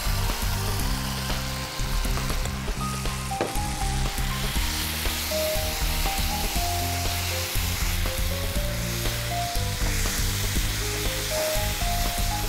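Mashed boiled eggplant sizzling as it fries in hot mustard oil and spice paste in a nonstick frying pan, stirred and scraped with a spatula, with soft background music.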